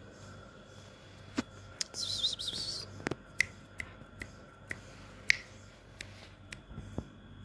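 About a dozen sharp clicks or snaps at irregular intervals, with a brief high hiss about two seconds in.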